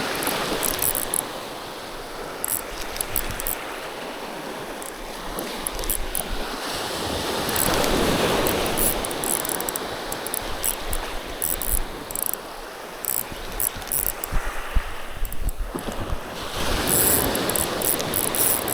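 Sea waves washing against the shore, a steady rush that swells about halfway through and again near the end.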